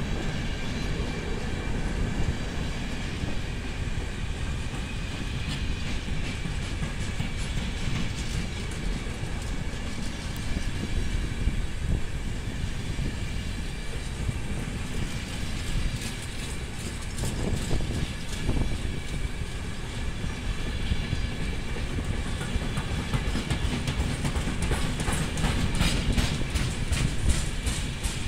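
Container freight wagons rolling past at a crawl, a steady low rumble of wheels on rail with faint steady high whines. Wheels click over the rail joints, and the clicks come thicker near the end.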